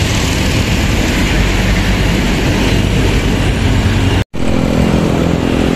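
Diesel engine of a Mercedes-Benz OF 917 medium bus passing close by, a loud steady engine drone. It cuts out for a split second about four seconds in, then carries on as a steadier hum.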